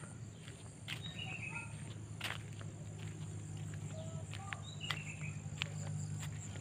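Steady high-pitched trill of insects in the grass, with short bird chirps now and then and a few light ticks.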